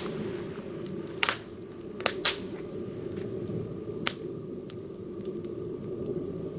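Swedish torch, a standing log split and burning from the inside, burning with a steady low rush and a few sharp wood pops and cracks.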